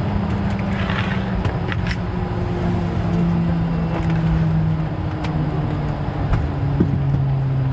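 Airbus A220-300 cabin with the Pratt & Whitney PW1500G engines at low power while taxiing: a steady rumble under an engine hum that slowly falls in pitch and settles near the end, as thrust eases back toward idle. A few light clicks and rattles from the cabin.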